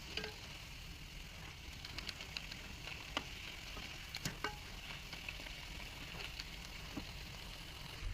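Bakwan fritters frying in hot oil: a steady sizzle with scattered pops and clicks.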